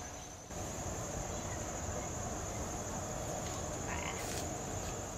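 Outdoor insect chorus: a steady, high-pitched trill that runs on without a break, over a rough low-pitched noise. The sound dips briefly about half a second in.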